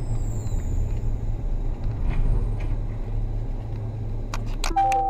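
Steady low rumble of a car driving on a snowy city street, heard from inside its cabin. Near the end come a few sharp clicks, then a steady tone at several pitches together.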